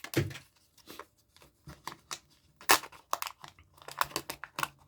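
A Kinder Joy egg being opened by hand: its foil wrapper crinkling and tearing, with a run of sharp plastic clicks and rustles that come thicker in the second half.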